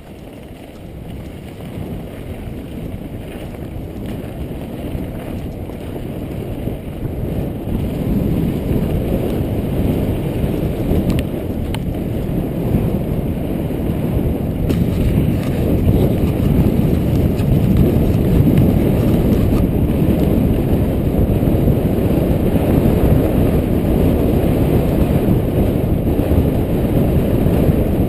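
Wind rushing over a GoPro Hero 2's microphone, mixed with mountain bike tyres rolling over a gravel trail, growing steadily louder as the bike gathers speed downhill.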